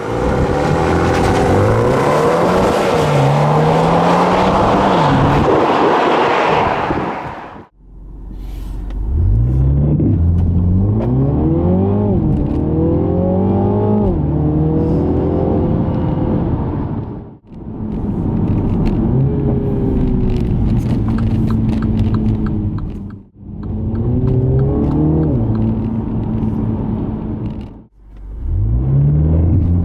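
2020 MINI Clubman John Cooper Works' 2.0-litre turbocharged four-cylinder engine at full throttle in a series of launches edited together. In each run the engine note climbs steeply, dips at each upshift, then climbs again. The first run is heard from outside behind the car with a harsher, noisier exhaust sound, and the later runs from inside the cabin.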